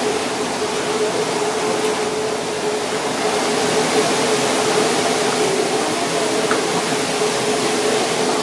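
Kitchen exhaust fan running steadily: an even rushing noise with a constant mid-pitched hum.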